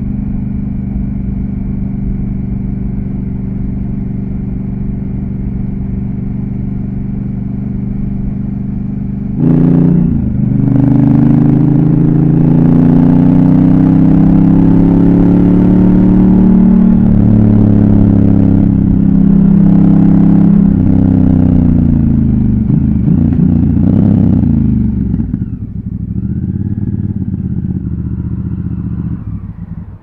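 Honda CRF1000L Africa Twin's parallel-twin engine under way: a steady cruising note, then, about a third of the way in, a sudden louder stretch in which the pitch rises and falls with the throttle. The engine eases off and settles to a quieter, lower note near the end.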